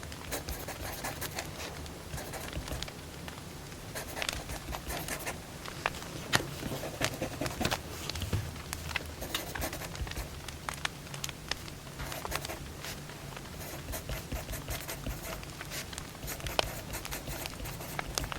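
Wood fire crackling, with irregular sharp pops and snaps over a steady low hum.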